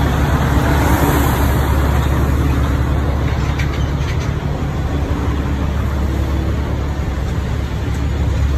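Semi-truck diesel engine running with a steady low rumble, heard from the cab.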